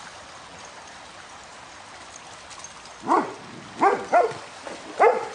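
Shallow stream running steadily. About three seconds in, a dog starts barking: four loud barks in quick succession.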